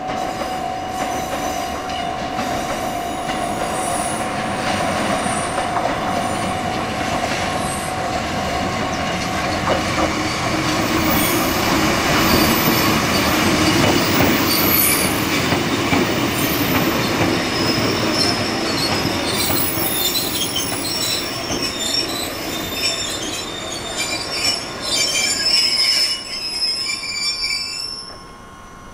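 Kotoden four-car retro electric train with nose-suspended traction motors running on the rails, loudest about midway, with high-pitched metallic squeals in the last ten seconds, then the sound falls away sharply just before the end.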